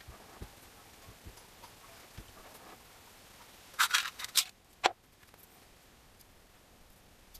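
Small metal engine parts clicking and clinking against an aluminium motorcycle crankcase half as they are handled and fitted: a quick cluster of clicks about four seconds in, then one sharp click that rings briefly.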